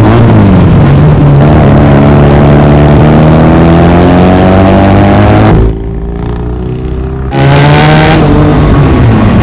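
Motorcycle with a loud modified exhaust accelerating, its engine pitch rising steadily. About six seconds in the sound drops quieter for a moment, then comes back loud and climbs again.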